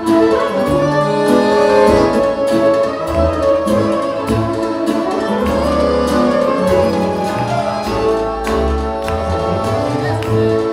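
Band playing upbeat instrumental dance music, a violin carrying the melody over a bass line and a steady beat.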